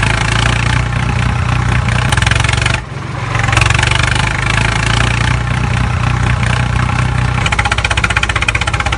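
Small motor running steadily with a low hum, dipping briefly about three seconds in, with a fast even pulsing setting in near the end.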